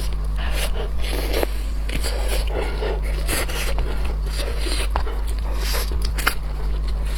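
Eating shellfish: irregular wet chewing, crackling and scraping of shells being bitten and pulled apart, over a steady low hum.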